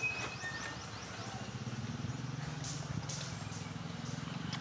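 An engine running steadily at a distance, a low pulsing hum that swells about a second and a half in. Short rising chirps sound high up in the first second.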